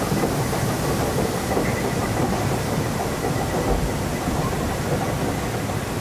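Steady rumbling clatter of a river-raft ride's conveyor lift as the round raft is carried up the incline.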